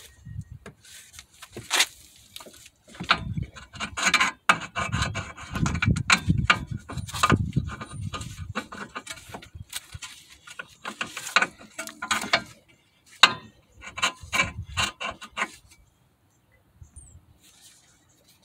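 Irregular clinks, knocks and scraping of metal suspension parts being handled as an outer tie rod end is fitted back into the steering knuckle and its nut is threaded onto the stud by hand.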